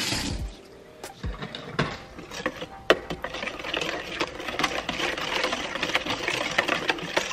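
Wire balloon whisk beating an egg into a wet banana-and-butter batter in a stainless steel bowl. A few separate clinks come first, then from about three seconds in rapid, steady whisking, the wires ticking and scraping against the metal bowl.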